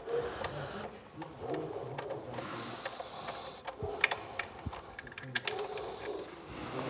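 Faint, scattered clicks and rustling of hand work as a gloved hand backs off the nut on the high-pressure fuel pump's drive gear.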